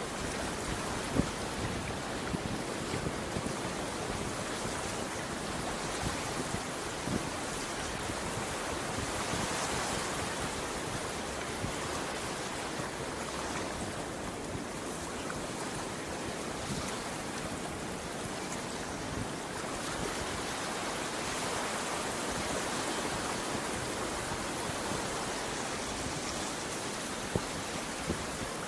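Ocean surf washing onto the beach: a steady wash of breaking waves that swells a little twice. A couple of brief sharp ticks stand out, about a second in and near the end.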